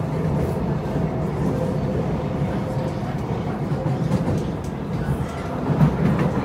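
Kawasaki C751B metro train running between stations, heard from inside the car: a steady low rumble of wheels on rail with faint steady tones from the traction equipment.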